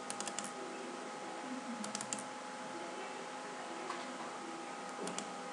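Computer keyboard typing in three short bursts of a few quick keystrokes each, over a steady background hiss with a faint hum.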